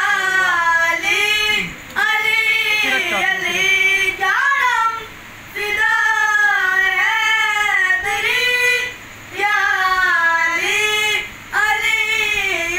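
Two boys singing a devotional song in praise of Ali, with no accompaniment. The melody runs in long held phrases broken by short pauses for breath.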